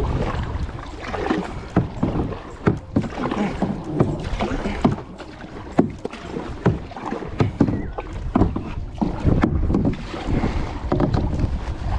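Canoe going through small river rapids: water splashing around the hull and paddles, with many irregular sharp splashes and knocks over a steady low rush of moving water.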